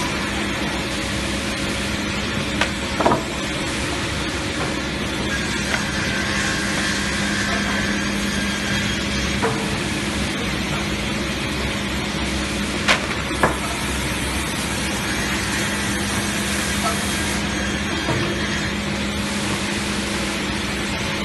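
Multi-rip edger saw running with a steady hum under constant rushing noise, broken by a few sharp knocks, two of them close together about halfway through.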